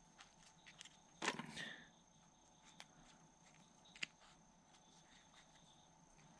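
Faint handling noises as cotton packing is pushed back into a Zippo lighter's metal insert: a short scrape about a second in and a sharp click about four seconds in, with a few faint ticks. A faint steady high tone runs underneath.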